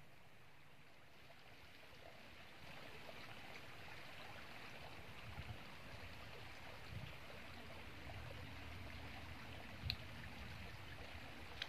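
Faint steady sound of flowing creek water, with two short clicks near the end.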